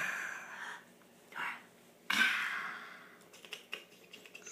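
A person making a breathy, hissing noise with the mouth, in three puffs with the longest about two seconds in: the coaxing noise made to get a baby to take a spoonful. Faint small clicks follow near the end.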